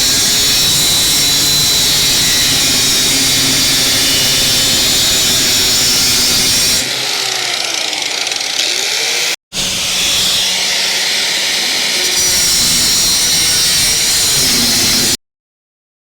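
Power tool running steadily, quieter for a few seconds in the middle with a brief dropout, then cutting off abruptly near the end.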